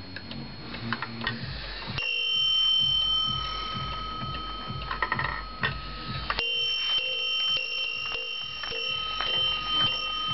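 Warmink Zaanse wall clock striking its bell twice, about two seconds in and again about six seconds in, each stroke ringing on for several seconds. The movement ticks underneath.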